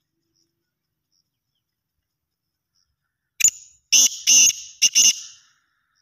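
Black francolin calling once: a phrase of about five short, high notes in quick succession, starting about three and a half seconds in and lasting about two seconds.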